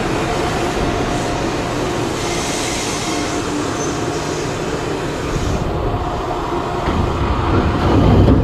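Shimabara Railway KiHa 2500 diesel railcar standing at the platform with its engine idling: a steady engine hum carrying a faint constant tone. There is a brief hiss about two seconds in, and the engine gets louder near the end close to the open door.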